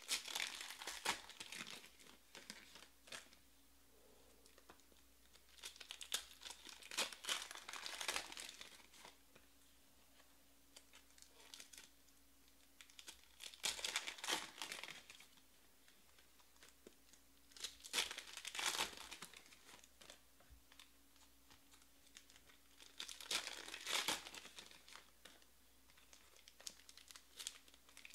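Foil wrappers of baseball trading card packs being torn open and crinkled by hand, in short bursts about every four to five seconds.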